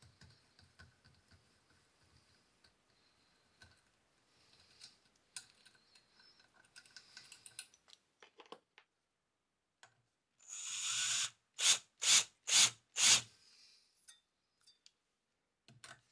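Faint clicks and scraping of a hand tap being turned in a tap wrench, cutting a thread in a stainless steel part. A few seconds of quiet follow, then a cordless drill runs in one longer burst and four short ones, putting a chamfer on the tapped hole.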